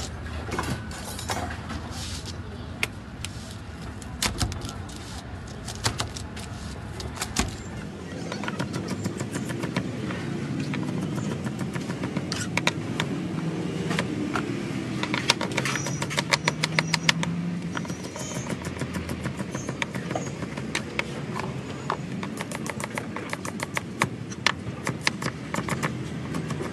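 Knife chopping vegetables on a plastic cutting board, sharp taps coming in quick runs, over a steady hum of street traffic.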